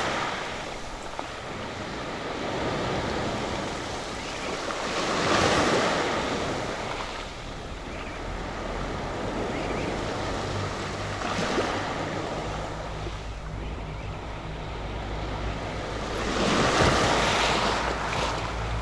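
Small surf washing up onto a sandy beach strewn with pebbles and seaweed, a wave coming in about every five to six seconds.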